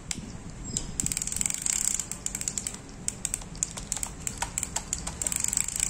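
Shimano Digitana SLS conventional reel turning with its anti-reverse set to one-way, giving fast runs of ratcheting clicks about a second in and again near the end, with scattered clicks between.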